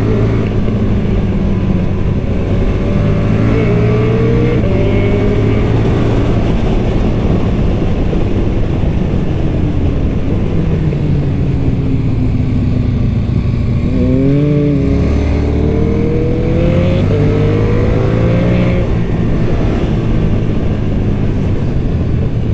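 KTM 1290 Super Duke R's V-twin engine through its stock exhaust, ridden hard on the road: the revs rise in several pulls and fall away in between, with a quick drop and climb in pitch a little past halfway.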